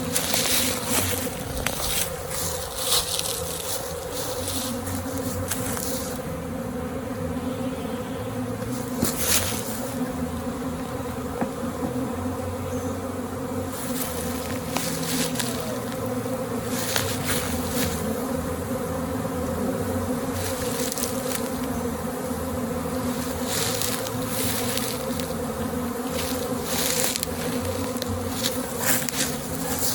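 A swarm of honey bees buzzing, a steady hum from many wings at once, with brief scratchy rustles now and then.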